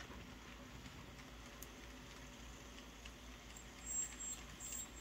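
N scale model freight train running along the layout track, faint and steady, with a few brief high-pitched squeaks about four seconds in.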